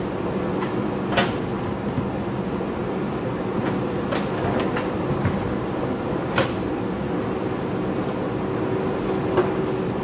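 JCB backhoe loader's diesel engine running steadily under load, with sharp knocks from the steel bucket working against the rock. The loudest knocks come about a second in, at about six seconds and near the end, with lighter ones in between.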